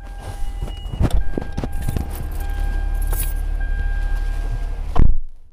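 Low rumble of a moving car heard from inside the cabin, with scattered knocks and rattles. A louder bump about five seconds in, then the rumble cuts off suddenly.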